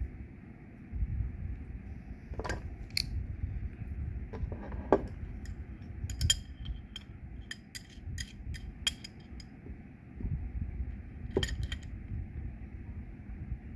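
Light metallic clicks and clinks as a quick-connect fitting is threaded onto a 1/4-inch pressure washer filter, over a low handling rumble.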